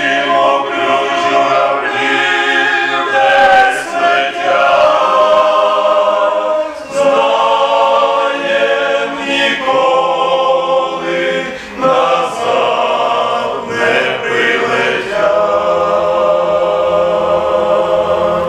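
Men's choir singing a hymn in Ukrainian, unaccompanied, in sustained chords with short breaks between phrases. It closes on a long held final chord that cuts off near the end.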